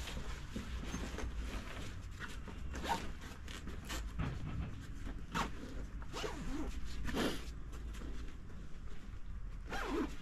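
Short rasping swishes, one after another about every second, like a zipper or fabric being pulled, as a bag or cloth is handled close to the microphone.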